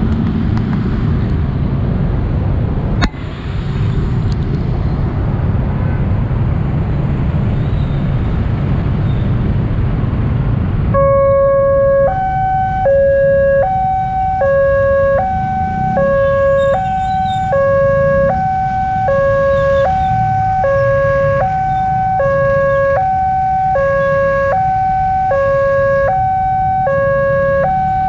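Road traffic noise, then about eleven seconds in the railway level-crossing warning alarm starts: an electronic two-tone signal, a low note and a higher note taking turns evenly, each lasting under a second. It signals an approaching train as the crossing lights flash red and the barrier closes. A sharp knock sounds about three seconds in.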